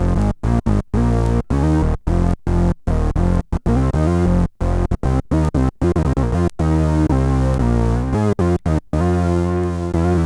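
Fender Jazz Bass played through an Electro-Harmonix Bass Mono Synth pedal, giving a synthesizer bass tone recorded direct. A run of short, choppy notes with brief gaps between them gives way to longer held notes about nine seconds in.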